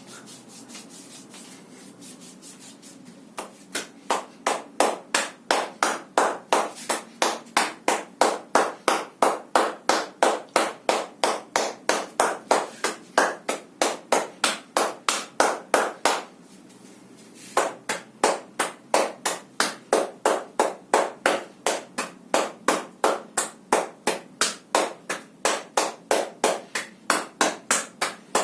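Hand strikes slapping on the body as percussion massage, in a steady rhythm of about three a second. They begin a few seconds in, stop for about a second and a half past the middle, then go on again.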